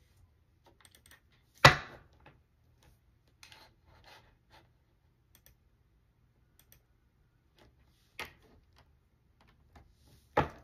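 Tarot or oracle cards being handled on a table: scattered light clicks and taps, with one sharp knock about a second and a half in and a couple more taps near the end.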